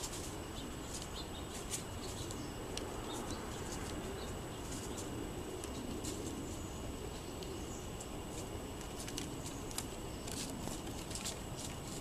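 Small songbirds calling with short, high chip notes scattered irregularly, over a steady low background hum.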